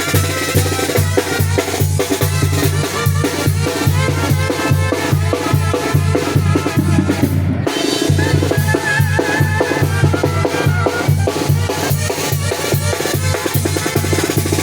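Zacatecan tamborazo band playing: the tambora bass drum and its cymbal keep a steady beat under trumpets and saxophones carrying the tune, with a short break just past halfway.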